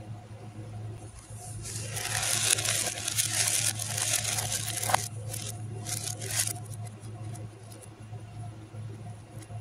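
Small plastic beads swept and scattered by hand across a plastic plate: a dense rattling, scraping clatter from about one and a half to six and a half seconds in, over a low steady hum.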